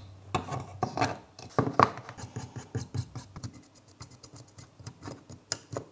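Small hard plastic parts handled on a desk: scattered light clicks, taps and rubbing as 3D-printed pieces are glued and pressed together.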